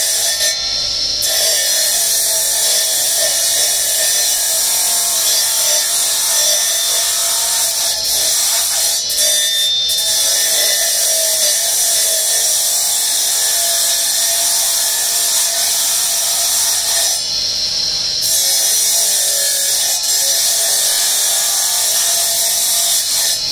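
A spinning abrasive disc grinds grooves into a piece of marble pressed against it by hand, making a steady, high grinding hiss. The hiss dips briefly about a second in and again near the 17-second mark.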